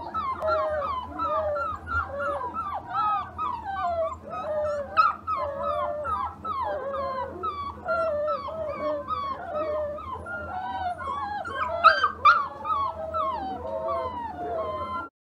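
Several young puppies whining and whimpering in protest at being bathed, many short rising-and-falling cries overlapping without a break. The cries cut off suddenly near the end.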